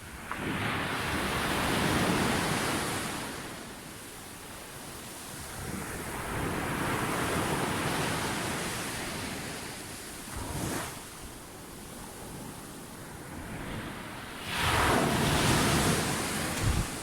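Sea waves breaking and washing up the beach, the surf rising and falling in surges every few seconds, with the loudest crash near the end. Some wind noise on the microphone.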